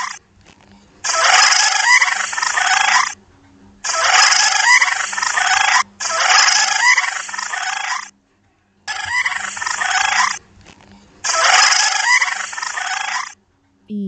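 A large wading bird calling: harsh calls in five spells of about two seconds each.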